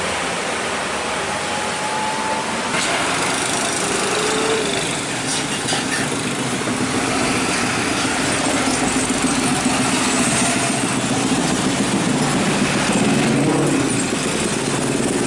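Road traffic passing, with an Isuzu FTR box truck's diesel engine running as it drives past. The engine grows louder through the second half, over a steady wash of tyre and engine noise.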